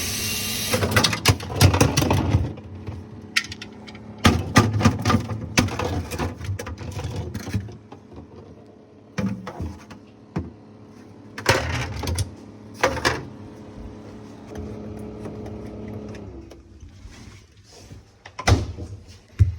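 Repeated knocks and plastic clatter from hands working inside a freezer compartment, with a steady low hum for several seconds in the middle.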